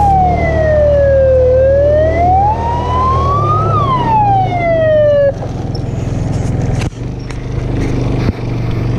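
Electronic wail siren sweeping slowly down, up and down again in pitch, then cutting off suddenly about five seconds in. A quad bike's engine runs steadily underneath, with rushing air noise left once the siren stops.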